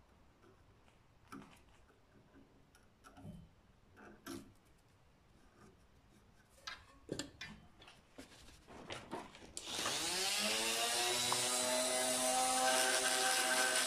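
Small knocks and clicks as a turned wooden piece is handled in a lathe chuck. About two-thirds of the way in, a hand-held rotary tool is switched on, and its high whine rises as the motor spins up, then runs steady.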